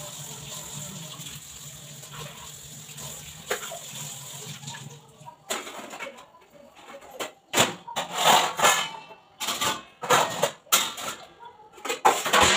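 Kitchen tap running into the sink for about the first five seconds, then an irregular clatter of steel pots and bowls knocking together as they are handled and set down.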